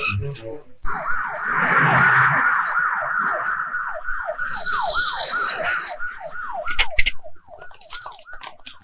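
Police siren sounding in quick, repeated falling sweeps, a couple a second, fading away over the last few seconds.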